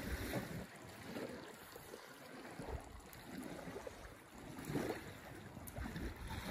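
Wind gusting across the microphone, with low buffeting rumbles that come and go.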